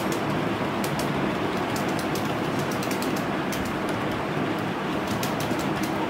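Computer keyboard keys clicking in a few short bursts of typing over a steady rushing background noise with a low rumble.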